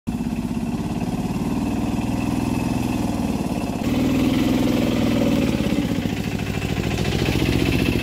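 Small engine of an auto-rickshaw running with a steady, rhythmic beat while the three-wheeler works through deep mud. There is a jump about four seconds in, after which it runs a little louder.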